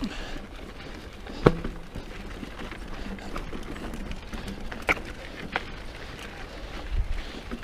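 Mountain bike ridden up rocky dirt singletrack: steady tyre and trail noise, broken by a few sharp knocks and clicks from the bike jolting over rocks, the loudest about a second and a half in.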